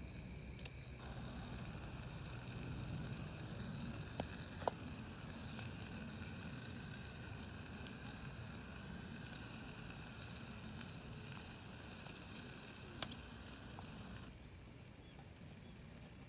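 Wood campfire burning with a steady faint hiss and a few sharp crackling pops, one louder snap near the end; the hiss drops away about 14 seconds in.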